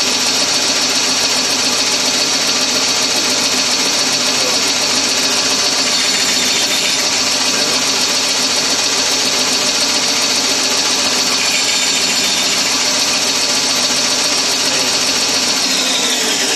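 Bandsaw running steadily, then switched off about a second before the end, its motor and wheels spinning down with a falling whine.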